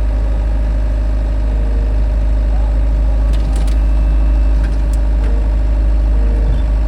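Tractor engine idling steadily, a low rumble throughout, with a few faint clicks in the middle.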